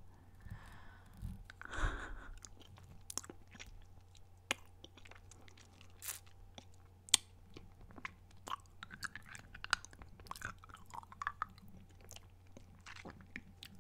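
Close-miked mouth sounds of someone sucking a Dum Dum lollipop: irregular wet smacks and sharp clicks, with one louder click about seven seconds in.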